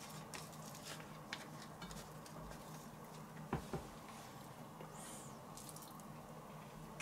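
Faint wet handling noises of raw bacon and meat being worked by hand: strips taken from the pack and wrapped around a stuffed turkey schnitzel. There are scattered soft clicks and two small knocks about halfway through, over a low steady hum.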